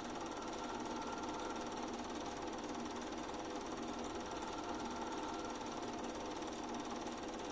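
Super 8 cine film mechanism running: a steady, fast, even mechanical clatter with a steady hum beneath it.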